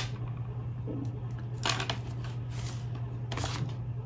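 Paper and a clear plastic ruler and protractor being handled on a desk: a few soft rustles and slides over a steady low hum.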